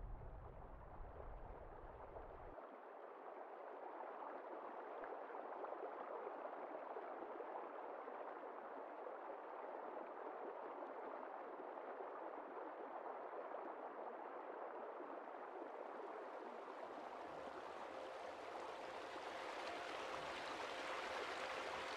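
River water flowing, a steady soft rushing that gets brighter and fuller toward the end. A low rumble underneath cuts off suddenly a couple of seconds in.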